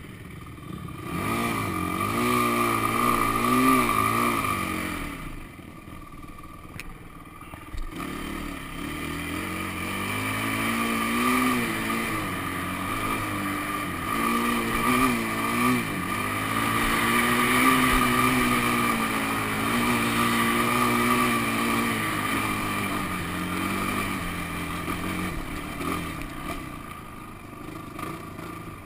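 Honda sport quad's engine under way on sand, revving up and down as the throttle is worked. It eases off for a few seconds about five seconds in, then pulls hard again with repeated rises and falls in pitch.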